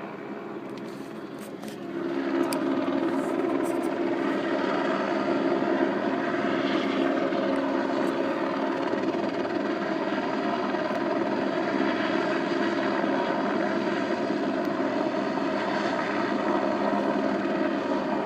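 News helicopter hovering overhead: a steady drone that grows louder about two seconds in and then holds level.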